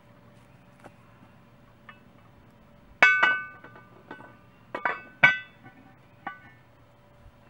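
Cast iron Dutch oven lid set onto the pot with a metal lid lifter: a loud ringing metallic clank about three seconds in, then several lighter clinks and a second loud clank as the lid is settled on the rim.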